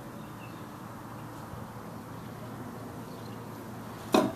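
Steady outdoor background noise. About four seconds in comes one short, loud sound.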